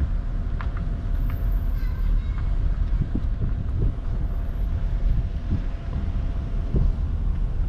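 Car driving slowly, a steady low rumble of engine and tyres heard from inside the car, with a few light knocks.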